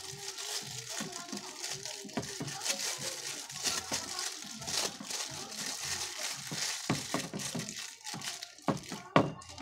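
Clear plastic crinkling and crackling as it is handled and wrapped around wire connections.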